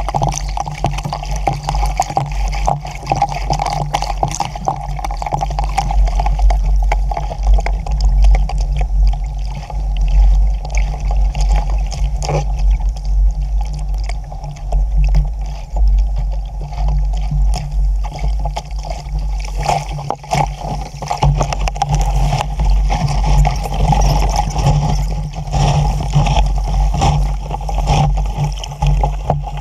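Wind buffeting the microphone in gusts while water rushes and splashes along the hull of a small Sabot sailing dinghy under way in choppy water.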